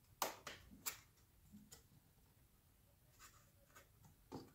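Faint, scattered clicks and light taps as an iMac's LCD panel is lifted by hand at its top edge and tilted out of the aluminium housing, with two quick clicks in the first second and a few softer ones later.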